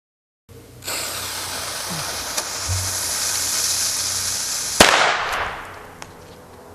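WiseGuy firecracker's fuse hissing steadily for about four seconds, then the cracker goes off with a single sharp bang that rings out briefly.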